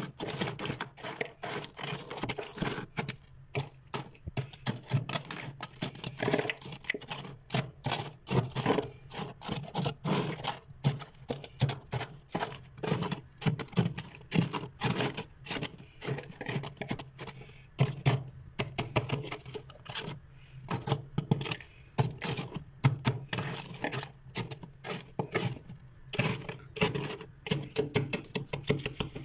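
Freezer frost crunching in a dense, irregular run of crisp crackles and clicks.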